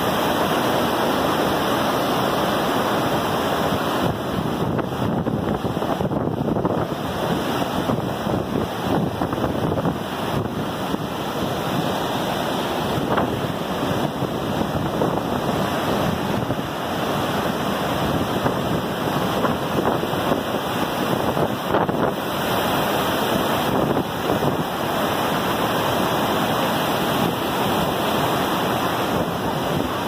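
Flooded rapids and waterfalls of the Iguaçu River rushing in a loud, steady roar of white water.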